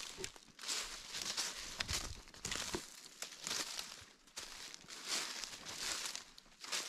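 Footsteps crunching through dry leaf litter at a steady walking pace.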